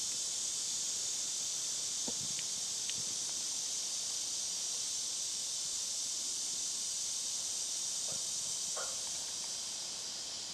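A steady, high-pitched chorus of insects droning without a break, with a few faint knocks and scuffs.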